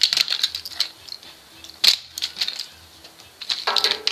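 Metal parts of a scrap microwave oven rattling and clicking as it is pulled apart by hand, in quick irregular clatters, with one sharp knock about two seconds in.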